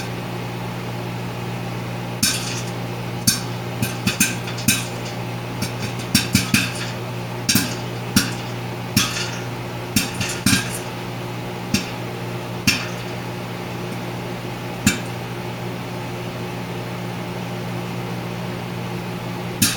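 Popcorn kernels popping in a microwave popcorn popper over the steady hum of a running 1,000-watt microwave. The pops come singly and irregularly, a second or more apart. This popping is relatively slow, which the owner says is not typical for this microwave.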